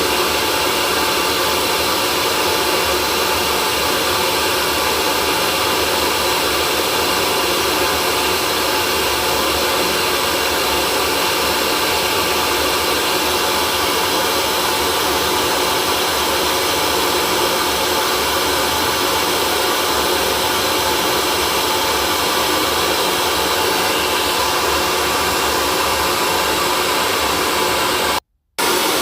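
Electric hair dryer running steadily: a continuous rush of air with the steady hum of its motor. The sound drops out for a split second near the end, then resumes unchanged.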